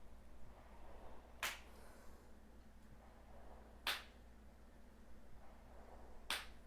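Three short, sharp hiccups, evenly spaced about two and a half seconds apart.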